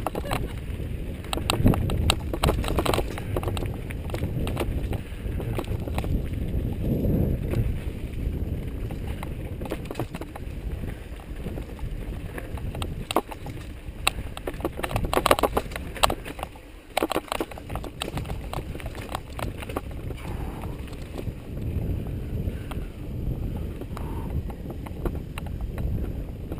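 Mountain bike descending a rough dirt trail, heard through a helmet-mounted GoPro: a steady low rumble of wind buffeting and trail noise, with scattered rattling knocks from bumps. The knocks are thickest about fifteen seconds in.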